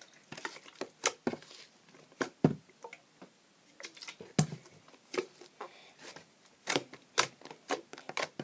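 Hands working slime mixed with shaving foam, giving irregular sharp sticky clicks and pops as it is pressed and pulled apart.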